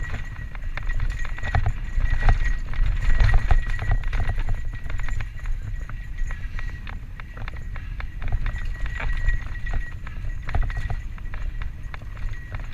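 Santa Cruz Tallboy LTC mountain bike descending fast over rough singletrack: a dense, irregular clatter of clicks and knocks from the chain and frame as the tyres run over roots and bumps. Wind rumbles on the helmet camera's microphone, with a thin steady high whine above.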